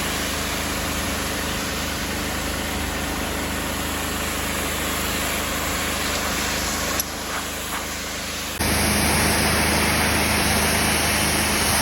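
Hot-water washing machine's engine running steadily under the hiss of water spraying onto brick. The sound dips about seven seconds in, then returns louder and brighter a second and a half later.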